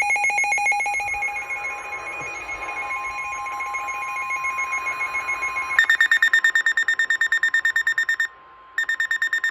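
Weather alert radios going off for a new warning: rapid electronic beeping, joined about three seconds in by a steady single warning tone. About six seconds in, a higher-pitched rapid beeping takes over, breaks off for half a second near the end, then resumes.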